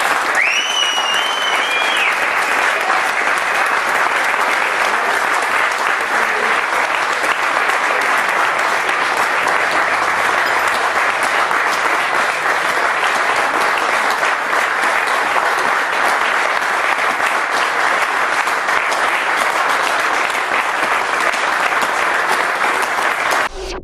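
An audience applauding steadily, with a shrill rising whistle from the crowd about a second in. The applause cuts off suddenly near the end.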